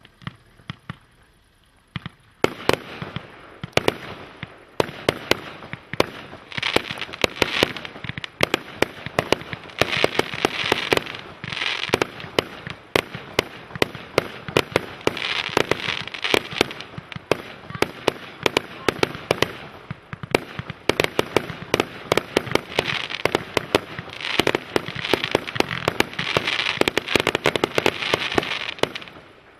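A 100-shot, 2 cm bore fireworks cake (Enigma "Dubai") firing. A few single shots come first, then from about two and a half seconds in a rapid run of sharp launch and burst reports, several a second. Under the shots is a hiss that swells several times.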